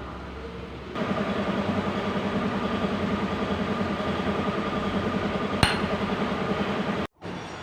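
Hyundai H100 engine running with a fast, even, metallic hard knock, which comes in louder about a second in and cuts off suddenly near the end. The knocking is the fault this engine was brought in for after it was driven through floodwater.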